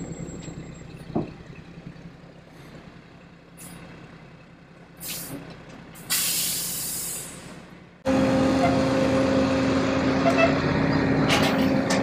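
Tank-delivery lift truck's engine running at idle, with two sharp bursts of air hissing out midway. About two-thirds of the way through it suddenly becomes a louder steady engine drone with a constant whine.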